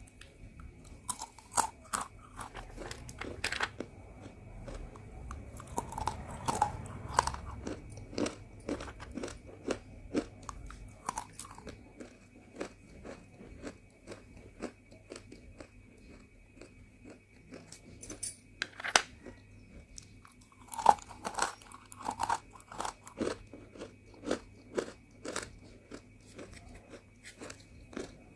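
Someone biting and chewing small pieces of roasted multani mitti (Fuller's earth clay): an irregular run of sharp, dry crunches, with an especially loud bite about nineteen seconds in.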